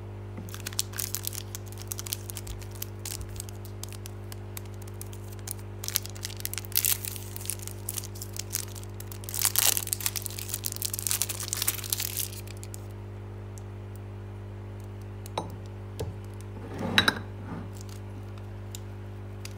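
Plastic chocolate-bar wrapper, a Snickers wrapper, crinkling and tearing as it is peeled off the bar, in two long bouts of crackling. Later come a few light clicks and a short rustle as the bars are handled in ceramic dishes, over a steady low hum.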